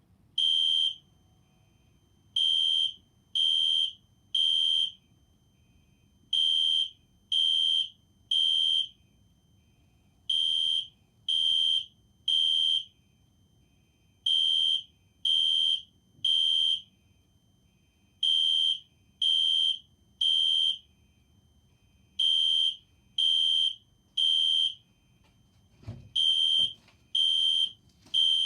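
Fire alarm horns sounding the temporal-3 evacuation pattern: groups of three loud, high-pitched half-second beeps, repeating about every four seconds. A few dull knocks sound near the end.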